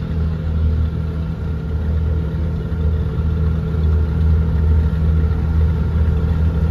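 An engine running steadily at an even speed, a low continuous drone with a constant hum.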